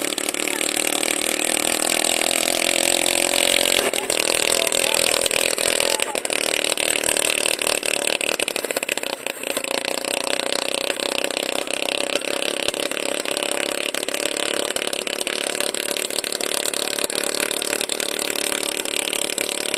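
An engine running steadily, with a wavering hum in the first few seconds that settles into a more even noise.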